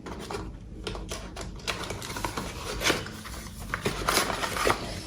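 Unboxing handling noise: irregular light clicks and taps of plastic parts with rustling of packaging.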